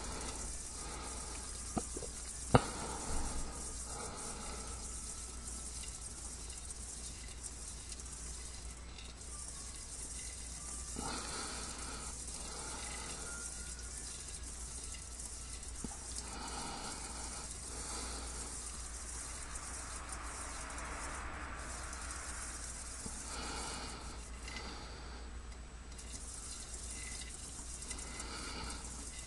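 A hamster's claws scrabbling and scratching on the metal sides of a wok in short, irregular bouts, over a steady low hum and hiss. A sharp click or knock about two and a half seconds in is the loudest sound.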